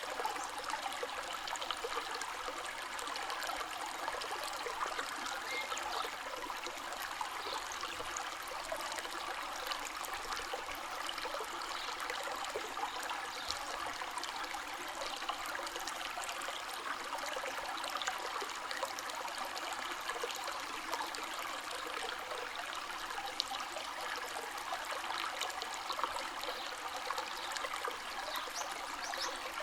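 A shallow stream or river flowing steadily over stones, an even rush of water with fine trickling and splashing detail.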